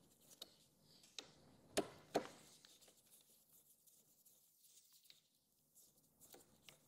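Faint clicks and light scraping of a hand screwdriver starting screws through a speaker's mounting ring into its adapter, with two sharper clicks about two seconds in and only faint ticks after.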